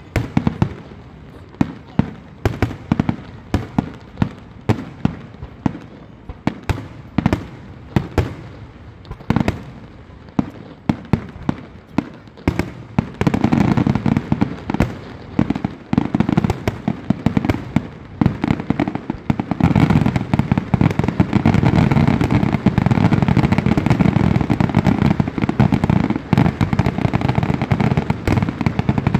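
Aerial firework shells bursting: separate sharp bangs about once a second, then about halfway through the bursts come so fast they merge into a near-continuous barrage, densest in the last third.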